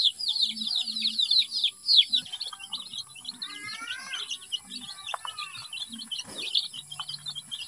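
A brood of Rhode Island Red and Barred Plymouth Rock chicks peeping while they feed: many quick falling chirps overlapping, busiest in the first two seconds and thinning after.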